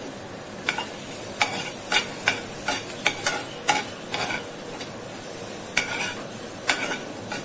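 Metal spoon scraping and knocking against a non-stick frying pan while stirring onions and tomatoes, over a steady faint sizzle of frying. About a dozen strokes come in a busy run through the first half, then a short pause and a few more near the end.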